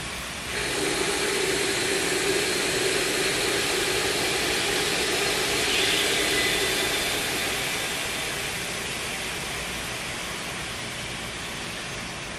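Aerosol can of expanding spray foam insulation hissing as it discharges through its straw into an ATV tire's valve stem, with the valve core out. The hiss starts suddenly about half a second in, holds steady, and slowly weakens over the last few seconds.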